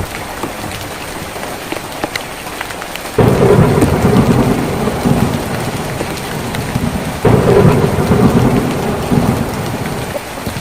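Rain drumming on a tin roof, overlaid by two loud low rumbles of thunder that each start suddenly, about three and seven seconds in, and fade over a few seconds.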